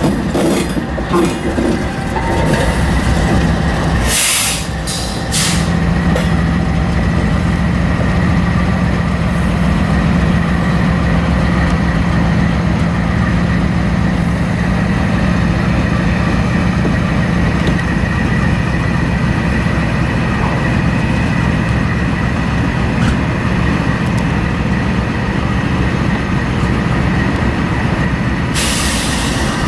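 GE C44-9W diesel-electric locomotive's engine running with a steady, loud low drone and a steady high tone above it. There are short bursts of hiss about four seconds in and again near the end.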